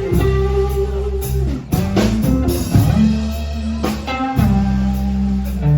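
Blues band playing an instrumental passage: electric guitar notes over sustained bass notes and drums.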